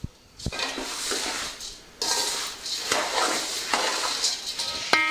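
Dry, crisp spiced puffed rice being stirred and tossed in a large aluminium pot: a metal spatula scraping the pot, with the puffed rice rustling. A short metallic ring comes near the end.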